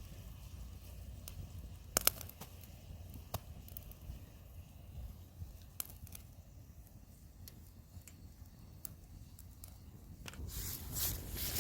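Korean pine campfire crackling faintly, with a few scattered sharp pops. A louder rustling noise builds near the end.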